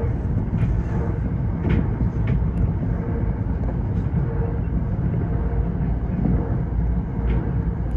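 Tokyo Metro 05 series electric train running at speed: a steady low rumble of wheels on rail, with a few faint sharp clicks at irregular intervals.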